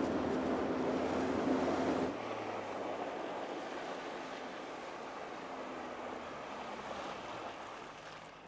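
Small aluminum motorboat under outboard power: a steady motor hum under loud rushing water and wind. About two seconds in it drops abruptly to a quieter wash of water and motor that fades away as the boat slows.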